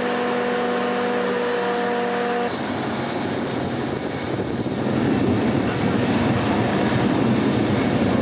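Purse seiner's deck machinery running while the net is hauled aboard. It starts as a steady hum with a held tone, then after an abrupt change about two and a half seconds in becomes a louder, rougher mechanical rushing with faint high whines, which grows about halfway through.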